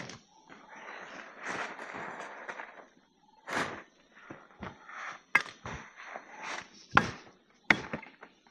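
Irregular sharp knocks and clatter of objects being handled, with a stretch of rustling about a second in and four louder knocks in the second half.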